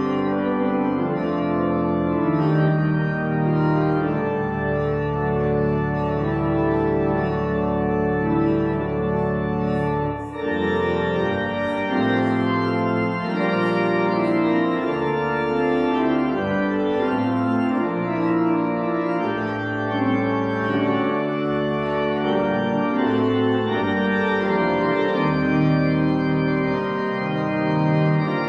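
Organ playing slow, sustained chords over long-held bass notes, the chords changing every second or two, with a brief break about ten seconds in.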